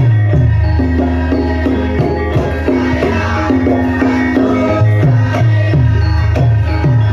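Live Javanese gamelan music in the Lengger dance style. A hand drum plays repeated strokes that bend down in pitch, over sustained pitched tones from the ensemble.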